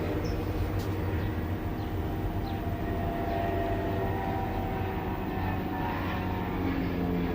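A steady, low engine-like drone in the background, which is most likely a passing vehicle or aircraft.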